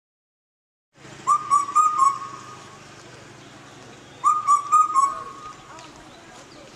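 A bird-like whistled call of four quick notes, starting about a second in and repeated about three seconds later, over a faint steady low hum.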